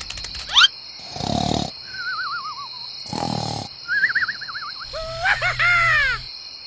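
Cartoon snoring sound effect: twice, a snoring breath in is followed by a wobbly whistle on the breath out. Near the end comes a string of quick rising-and-falling chirps, all over a steady high cricket chirr.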